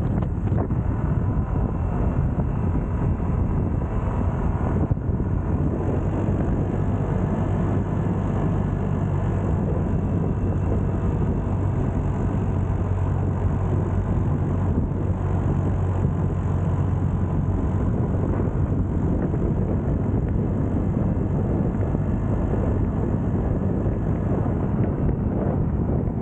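Motor scooter riding along a paved road: a steady low engine hum under constant wind rush on the microphone.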